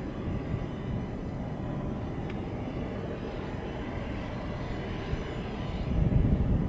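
Steady drone of the Goodyear Zeppelin NT airship's propeller engines passing overhead, with a few faint steady tones in it. A heavier low rumble comes in about six seconds in.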